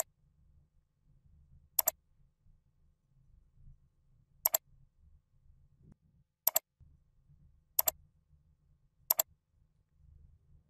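Computer mouse button clicking five times at uneven intervals, each a quick pair of sharp clicks, over a faint low hum.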